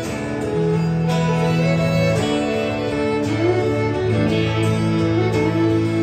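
Fiddle playing an instrumental break, long held notes and short melodic runs, over guitar accompaniment from a live band.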